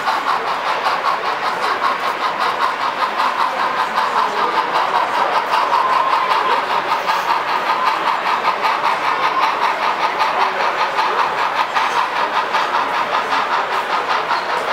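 Model train running on layout track: a steady mechanical whir with a fast, even clatter, holding level throughout.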